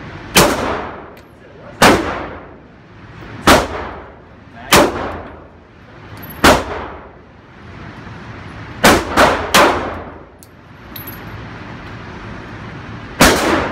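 Handgun shots fired one at a time, nine in all, each a sharp crack followed by a short echo off the indoor range's walls. Most come a second or two apart, with a quick run of three about nine seconds in.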